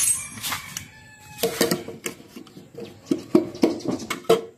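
Handling clatter of a steel recessed flight-case handle being test-fitted into a plywood panel: short clicks and knocks of metal on wood, coming thick and fast from about a second and a half in.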